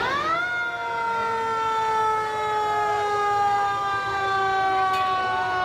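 Fire truck siren sounding loudly: its pitch climbs quickly at the start, then sinks slowly and steadily across the rest of the sound.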